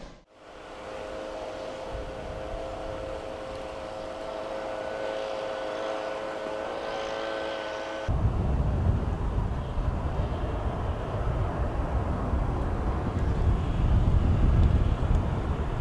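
Boeing 737 airliner on the ground giving a steady whine of several tones, the highest edging up slightly about five seconds in. About eight seconds in the sound switches abruptly to a louder low rumble.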